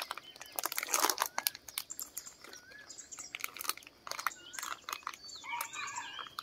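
Plastic food wrapper crinkling and crackling in the hands as it is opened, most busily in the first couple of seconds. A bird chirps in short gliding notes in the background, several close together near the end.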